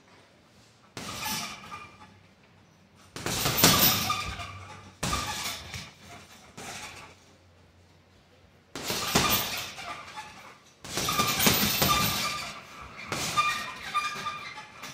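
Gloved punches landing on a hanging heavy bag in about seven quick flurries, each set off by a metallic jangle from the bag's hanging chain that rings on for a second or so.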